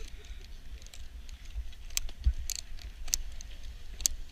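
Snowboard binding straps being ratcheted tight by gloved hands: a few sharp, separate clicks about half a second to a second apart, over a steady low rumble.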